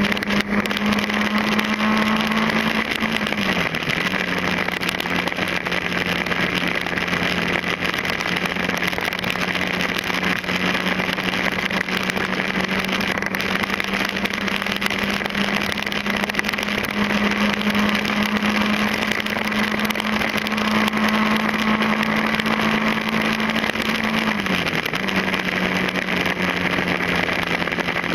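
Motorcycle engine running at a steady cruise under loud wind and road noise. Its note drops twice, about four seconds in and again near the end.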